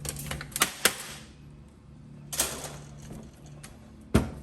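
A laptop's plastic case being pried open, its clips snapping and clicking: several sharp clicks, the loudest near the end.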